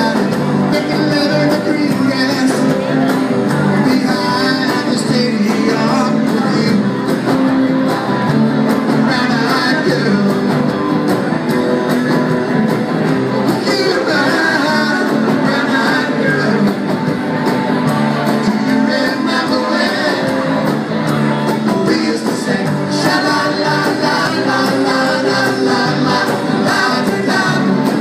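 Live rock and roll band playing, with a lead singer and strummed acoustic guitar.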